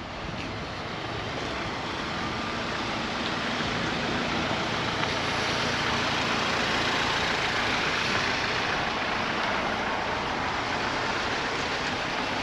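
Road vehicle passing close by over steady traffic noise, the rush of its tyres and engine swelling to a peak about halfway through and then easing off.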